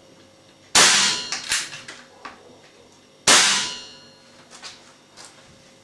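Two unsuppressed shots from a Webley & Scott FX2000 .177 pre-charged pneumatic air rifle, about two and a half seconds apart. Each is a sharp crack that dies away within about half a second and is followed by a few fainter clicks.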